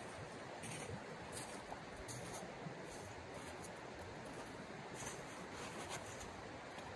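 Shallow stream running steadily over stones, with a few soft crunching footsteps on icy snow.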